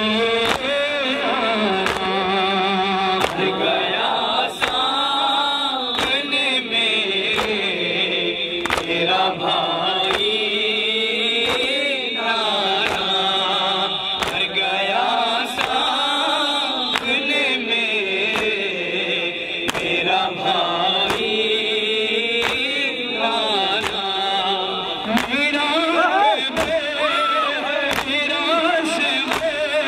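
A man's voice chanting a noha, a Shia mourning lament, through a microphone and loudspeaker, the melody rising and falling in long held lines. Under it runs a steady beat of sharp strikes, a little over one a second, typical of mourners beating their chests (matam) in time with the lament.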